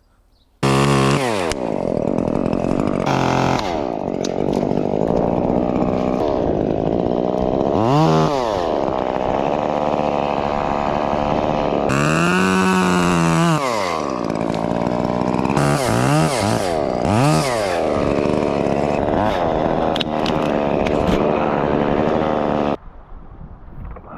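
Chainsaw running, revved up and down again and again while cutting into the pine. It starts suddenly just after the beginning and cuts off suddenly near the end.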